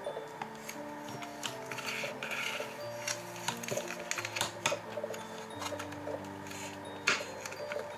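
Soft background music with held, gently changing notes, over small hard clicks and taps of plastic: washi tape rolls being slid and lifted on a clear acrylic tape holder, the sharpest click about seven seconds in.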